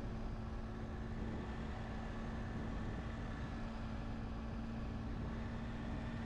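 Triumph Tiger 800 XC's three-cylinder engine running at a steady cruising speed, with an even wind and road rush over it and no change in pitch.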